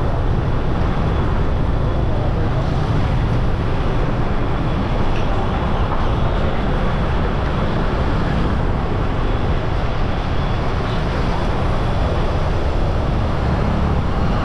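Steady road noise from riding in traffic: a low wind rumble on the microphone with motorcycle and scooter engines running alongside.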